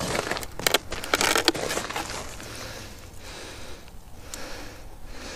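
Crunching and scraping of crusty snow and ice as a plastic ice-fishing tip-up is handled and slid off the hole, loudest in the first two seconds and then quieter.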